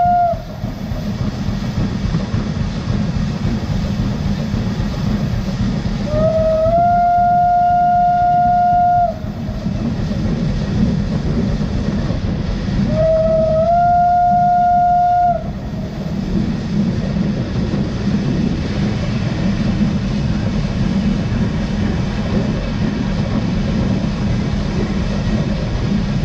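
Steam locomotive whistle of the 1919 Krauss-built No. 92.2271 giving two long blasts of about two to three seconds each, the first about six seconds in and the second about thirteen seconds in, after the tail of an earlier blast right at the start. Each blast steps up slightly in pitch as it opens, then holds one steady note. Under the whistle runs the steady rumble of the moving train on the track.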